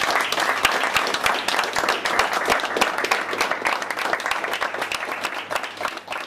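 Small audience applauding, many hands clapping densely, the clapping gradually thinning out and fading near the end.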